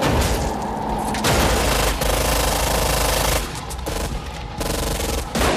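Automatic rifle fire: long, rapid bursts of shots running into one another. The longest run comes about a second in, and a fresh loud burst comes near the end.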